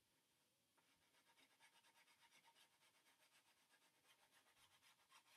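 Faint scratchy strokes of a pastel stick coloring on paper, quick and back-and-forth at about six strokes a second, starting about a second in.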